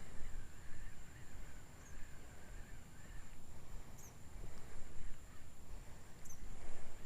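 Outdoor ambience with a low rumble, a thin steady high-pitched tone, and a few brief bird chirps, one about four seconds in and another about six seconds in.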